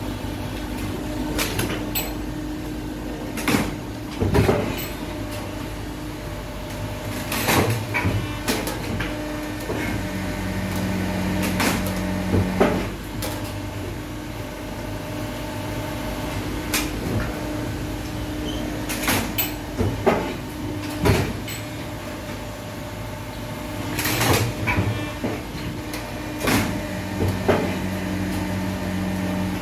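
Plastic injection moulding machine running with a steady hydraulic drone; a second steady tone comes in for a couple of seconds twice, about seventeen seconds apart. Repeated sharp knocks and clatters of moulded plastic parts being handled on the table.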